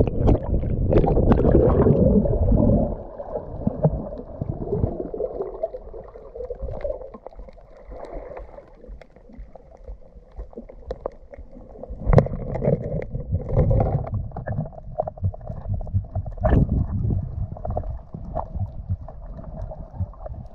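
Water sloshing and rushing as a diver goes under, heard muffled through an underwater camera: loud splashing for the first few seconds, then quieter water noise with scattered clicks and knocks.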